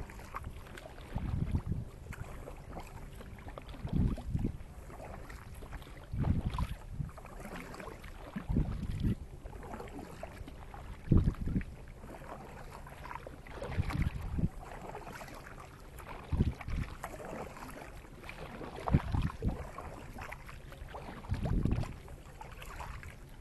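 Kayak paddles stroking through calm water at a steady pace, a splash and swirl about every two and a half seconds, with some wind on the microphone.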